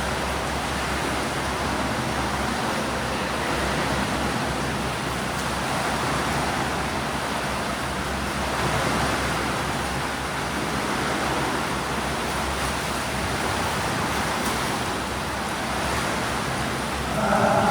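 Steady wash of swimming-pool noise: swimmers splashing and water churning in the pool. A brief pitched sound comes in near the end.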